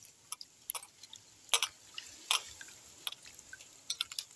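A hand squeezing and swishing ground leaf paste through water in a stainless steel bowl, making irregular small splashes and drips.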